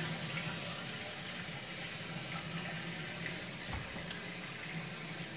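A steady hiss with a low hum underneath, and two short knocks a little past the middle.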